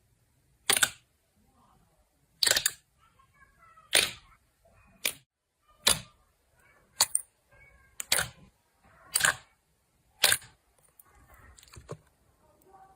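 Slime being squeezed and pressed by hand, letting out sharp air-bubble pops about once a second, with faint squeaks between some of them.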